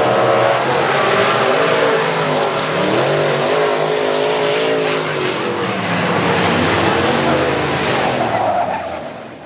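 Several dirt-track race car engines running hard, their pitch rising and falling as the cars go around the track. The sound fades out near the end.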